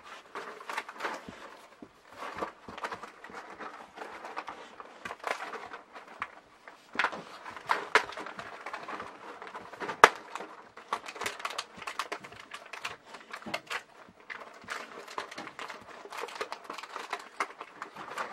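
Irregular crinkling, crackling and clicking of cardboard and plastic packaging being handled, a dog-treat advent calendar being opened, with one sharp click about ten seconds in.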